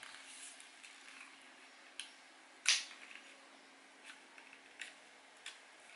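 Small clicks and taps of a GoPro being pushed into and adjusted in a gimbal's camera mounting plate, with one sharper click a little before halfway, over a faint steady hum.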